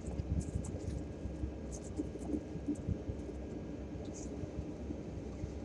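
Steady low rumble and hiss from a peregrine falcon nest-box microphone, with a few faint, short scratching ticks as the falcon shifts on the gravel scrape over its eggs.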